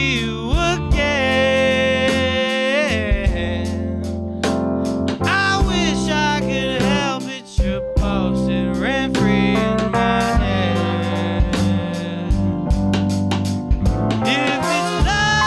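Live jazz band playing: a tenor saxophone solos with a bending, wavering melodic line over electric bass, drum kit with cymbal hits, and keys.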